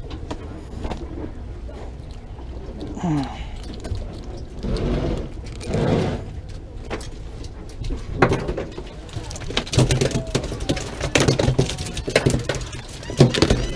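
A freshly caught fish flopping on a boat deck, a rapid, irregular run of knocks and slaps that starts about halfway through. A steady low engine hum and scattered voices run underneath.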